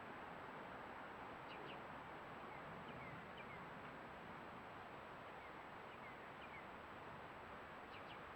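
Faint outdoor background hiss with scattered short, high, falling bird chirps, a few in quick succession several times.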